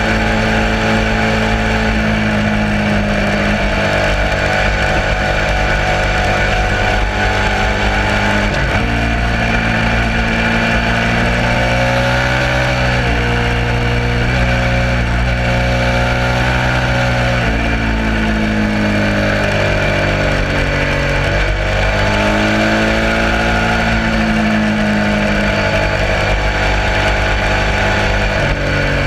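Suzuki SV650 90-degree V-twin motorcycle engine running hard on track, its note rising and falling with throttle and gear changes, with several abrupt pitch changes through the stretch, over steady wind and exhaust noise.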